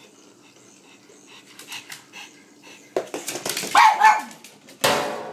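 A pug barking: a burst of excited barks about three seconds in and another sharp bark near the end, after a few seconds of faint ticking.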